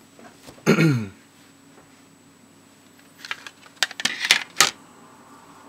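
A short voiced sound from a person, falling in pitch, about a second in, then a quick cluster of sharp clicks and taps between about three and five seconds in, from sticks of drawing charcoal being handled.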